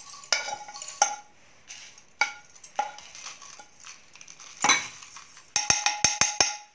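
A spoon scraping roasted dals, whole spices and dried red chillies out of a nonstick pan into a steel mixer-grinder jar, with the seeds pattering into the jar. Near the end, a quick run of about six ringing metal taps as the spoon knocks against the pan or jar.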